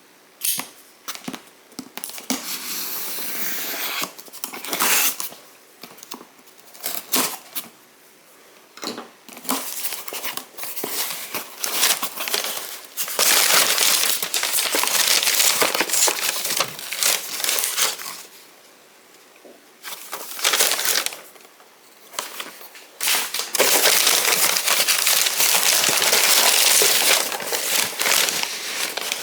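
Packaging being handled, crinkling and tearing in irregular stretches of a few seconds each, with pauses and sharp clicks between them.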